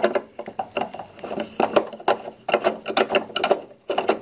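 A screwdriver driving a screw down into an aluminium adapter plate on a wiper motor mounting bracket, giving bunches of rapid clicks with short pauses between them.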